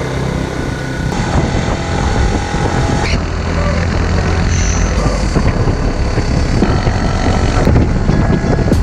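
Motocross bike engine running steadily while shuttling a mountain biker uphill, with wind on the action camera and irregular rattling along the way.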